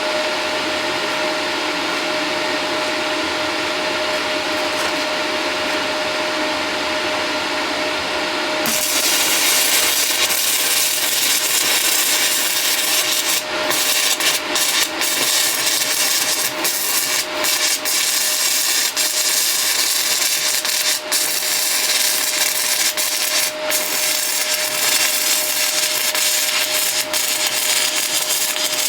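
Stick welder's steady hum for about nine seconds, then the 6010 electrode's arc is struck and crackles and sizzles steadily, with a few brief breaks, as a first pass is laid on a cracked steel shooting plate.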